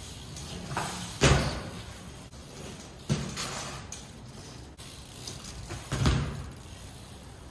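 BMX bike thudding down onto concrete during flat-ground hops: several sharp thuds with a short echo, the strongest about one, three and six seconds in.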